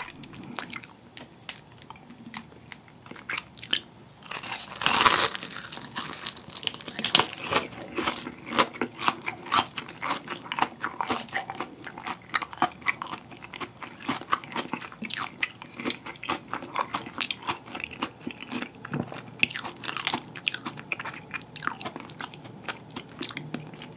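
Crispy battered fried king prawn bitten and chewed close to the microphone: a loud crunch about five seconds in, then a long run of sharp crackles as the crisp batter breaks up.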